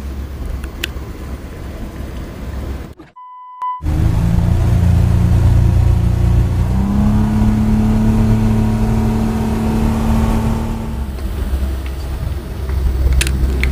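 A 200 hp outboard motor drives the boat at speed, its pitch stepping up about seven seconds in as it is throttled up, then easing back near the end. A short steady beep sounds in a brief gap about three seconds in.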